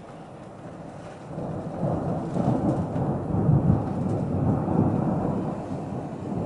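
A rumble of thunder from a light thunderstorm: it builds about a second in, rolls on for several seconds, and dies away near the end.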